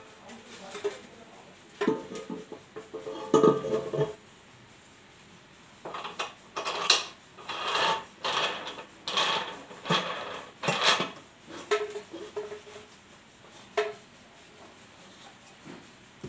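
Knocking, clattering and scraping as a strapping coil and the black cover disc of a strapping machine's dispenser reel are fitted and pressed onto the reel's spindle. A few knocks ring briefly two to four seconds in, and a run of scraping strokes about every half second comes in the middle.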